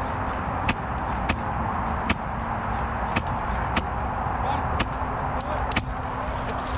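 Suppressed HPA airsoft rifle firing single shots: about ten sharp snaps at uneven intervals, roughly one every half second to second, over a steady background hiss.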